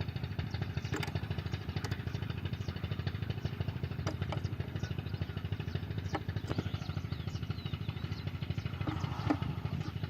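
Petter diesel engine running steadily with a fast, even beat, with a few sharp clicks and knocks over it.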